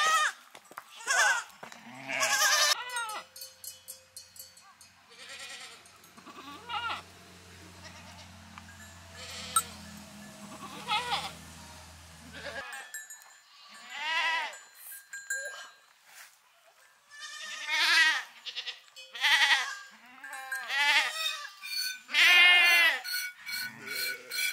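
A flock of goats and sheep bleating, one wavering call after another, with the bell on a goat's neck clanking now and then.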